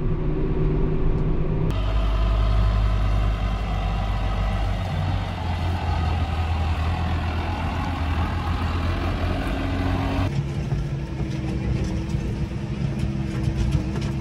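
Tractor diesel engines running in three back-to-back clips, the sound changing abruptly at each cut about 2 s and 10 s in. First an engine heard from inside its cab, then a red front-loader tractor working among the hutches, then a Case IH tractor driving, heard from inside its cab.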